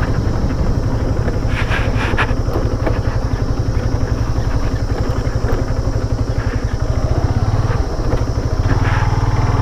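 Motorcycle engine running steadily under way, a low rumble of fast, even firing pulses that eases briefly near the end.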